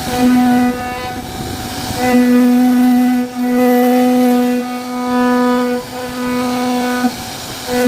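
CNC router machine's motors whining at one steady pitch in repeated stretches, stopping and starting again every second or so as the machine moves between cuts.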